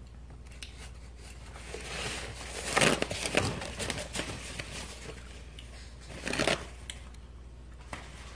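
Paper towel being torn and crinkled as it is handled, in rustling bursts: a longer spell about two to four seconds in and a short one a little past six seconds.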